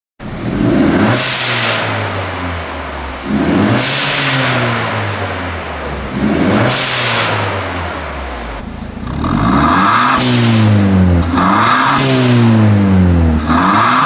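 Mercedes-Benz A250 (W176) 2.0-litre turbocharged four-cylinder revved while stationary through a Fi Exhaust valvetronic catback with the valves open. There are six throttle blips: three slower ones about three seconds apart, each rising then falling away, then three quicker ones close together near the end.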